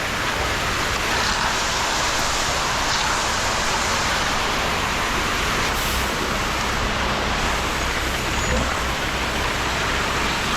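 Concrete mixer truck running steadily while it discharges concrete, a continuous even rushing noise over a low engine hum.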